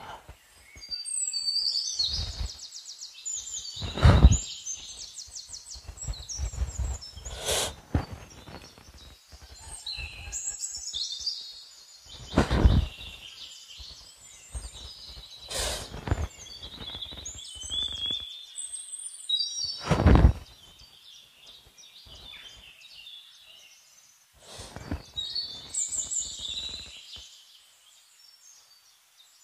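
Forest birds singing in several bouts of quick, high chirps and trills. Five short, loud low thumps come a few seconds apart, the loudest about four seconds in.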